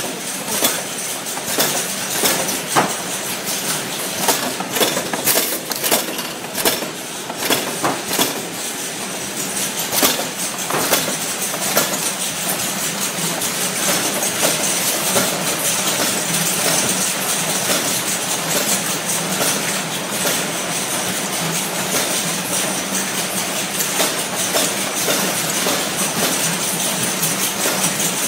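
Automatic cartoning machine running: a continuous mechanical clatter of many quick clicks over a steady hum. The clicks are sharpest in the first half, and the sound becomes a more even din later.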